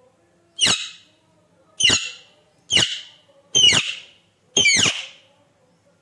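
Alexandrine parakeet giving five loud, short screeching calls about a second apart, each dropping in pitch at its end, presented as the bird's angry calls.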